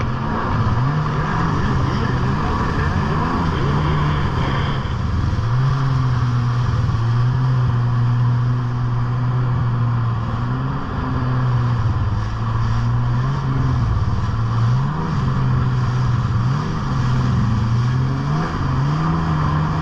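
Jet ski engine running hard, its pitch rising and falling again and again as the throttle is worked, under the rush of wind and water spray.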